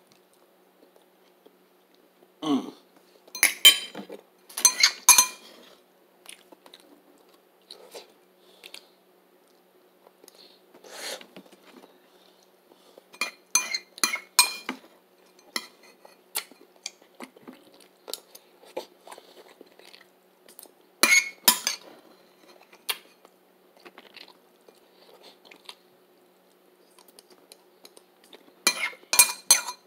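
Cutlery clinking and scraping against a plate in several short bursts, with chewing between them and a faint steady hum underneath.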